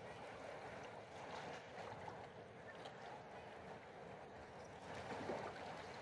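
Faint, steady sound of seawater moving and lapping, with a slightly louder splash or bump about five seconds in.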